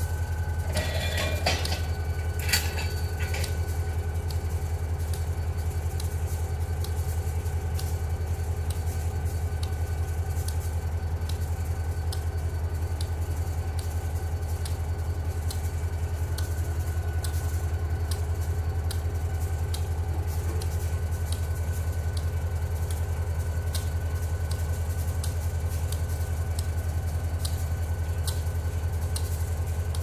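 Diesel locomotive idling while stopped, a steady low engine drone, with a few sharp clicks about one to three seconds in.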